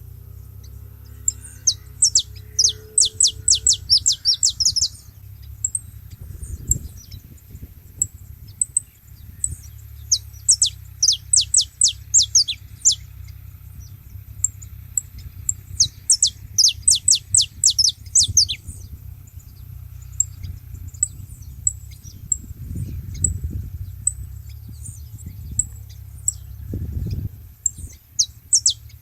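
Saffron finches singing: loud phrases of rapid, high, downward-sliding notes about every five to ten seconds, with short high chirps between them.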